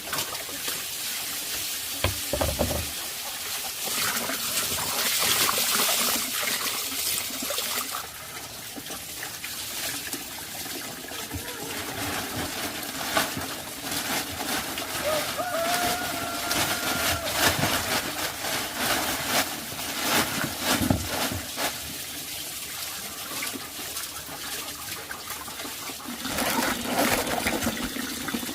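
Water running and splashing, with scattered light clicks and knocks, and a short pitched call about halfway through.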